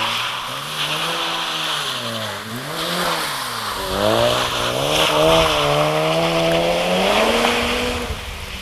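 Mazda RX-7 FD's 13B-REW twin-rotor rotary engine revving up and down repeatedly under hard driving. Its pitch falls and rises several times, is held high for a few seconds in the middle, then drops near the end.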